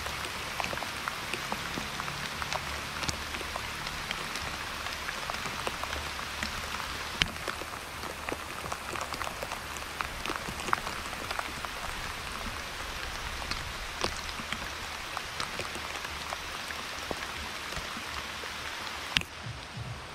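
Steady rain falling on leaves: an even hiss with many separate drops ticking.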